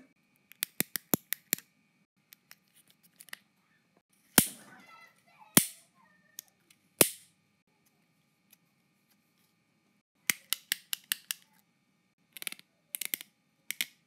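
Plastic fidget pad (controller-shaped fidget toy) being clicked: runs of quick sharp clicks from its buttons and switches, with three louder single clicks spaced about a second apart in the middle.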